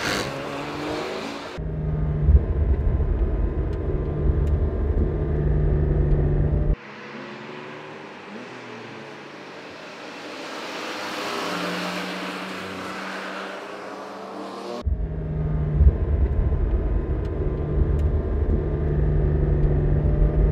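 Porsche 718 Cayman GTS 4.0's naturally aspirated flat-six engine running hard, in cut-together takes: a loud, deep, steady engine note that drops in and out, then a quieter stretch of the car heard from trackside with a slow swell past the middle, then the deep close engine note again.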